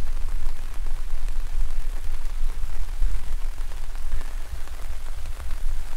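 Fast-running muddy floodwater rushing over the ground: a steady hiss with a heavy, unsteady low rumble beneath it.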